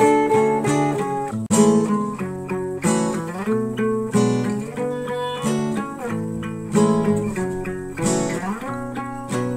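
Background music of acoustic guitar, with plucked notes and strums following one another steadily.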